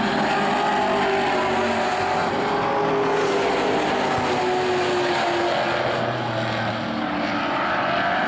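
Several stock car engines running at racing speed as a pack laps the oval, their pitches rising and falling together.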